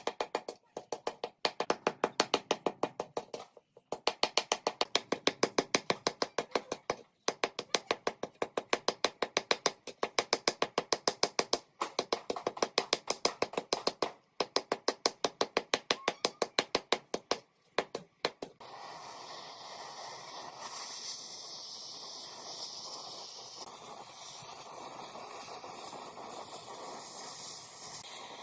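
Fast, evenly repeated scraping or rubbing strokes, roughly six a second, in runs of a few seconds with short pauses, from hand work on a metal fan part. About two-thirds of the way through they stop and a steady spraying hiss takes over.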